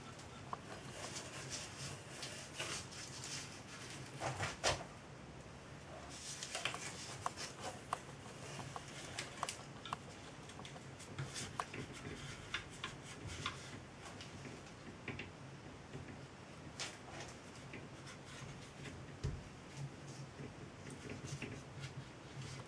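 Hands handling a small model steam traction engine while working a white band around its painted boiler: scattered small clicks, taps and rustles, with a couple of louder knocks about four and a half seconds in. A faint steady low hum lies underneath.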